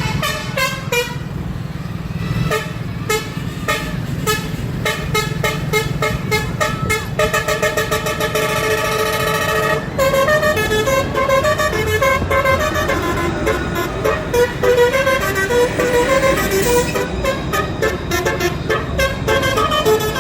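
A rapid, playful run of short horn-like toots and pitched electronic tones, with a held chord of several tones for about three seconds around the middle, over a steady low rumble of the tram and street.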